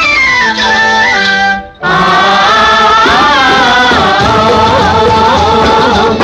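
Instrumental interlude of a 1970 Hindi film song: orchestral music with a falling melody that breaks off for a moment just under two seconds in, then comes back full with a wavering, ornamented melody line.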